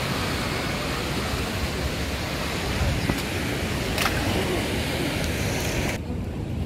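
Wind buffeting the microphone over the steady rush of ocean surf, with a couple of faint clicks; the higher hiss drops away suddenly near the end.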